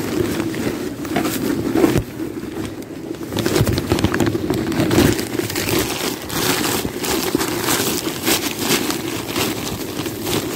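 Handling noise from a camera microphone rubbing against denim clothing: a continuous crackling rustle with dense scratchy clicks, and a sharp scrape about two seconds in.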